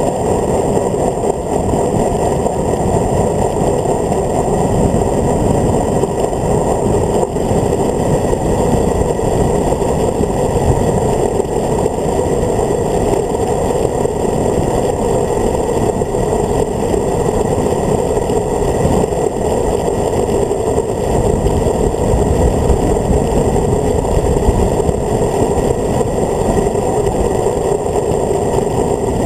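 Loud, steady wind rush over a handlebar-mounted camera's microphone during a fast road-bike descent. It sounds muffled, with a constant low buffeting.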